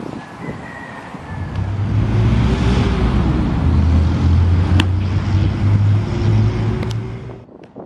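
A motor vehicle's engine running close by: a low hum that builds over the first couple of seconds, holds, then falls away sharply near the end, with a couple of sharp clicks over it.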